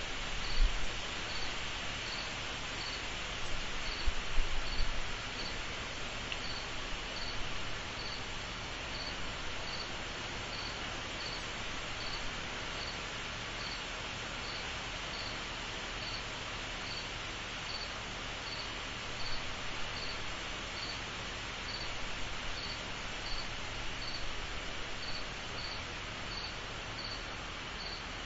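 Insect chorus: a steady high-pitched trill with one insect chirping at an even pace above it. A few brief low bumps come in the first five seconds.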